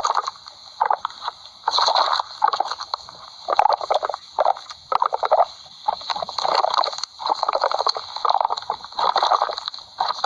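Cartoon sound effect of a stomach growling, in a long run of short, irregular bursts, about one a second.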